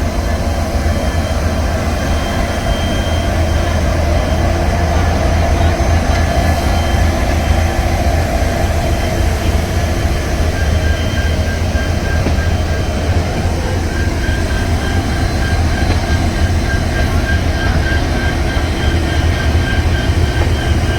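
Howrah Mail passenger train running on the track: a steady rumble of the coaches on the rails. A faint thin high whine comes in about halfway.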